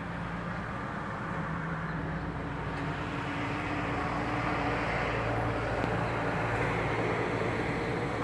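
Steady low engine rumble of motor traffic, with a hum that drops in pitch about halfway through and grows a little louder toward the end.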